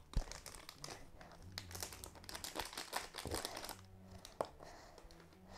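Faint crinkling and rustling of a plastic slime packet being handled and squeezed out, with scattered small crackles and a couple of sharper knocks.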